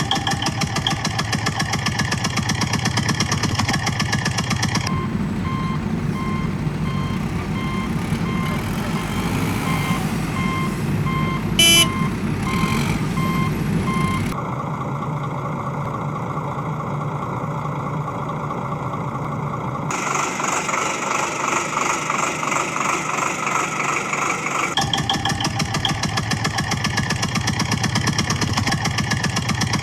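Heavy diesel vehicle engine running, its sound changing abruptly several times, with a reversing alarm beeping steadily through the middle stretch and one sharp knock about halfway.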